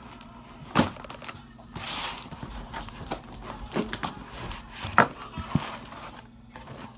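Cardboard shipping box being opened and handled by hand: flaps pulled and torn with a rustling, tearing noise about two seconds in, and several sharp knocks as the box is handled on the table, the loudest about five seconds in.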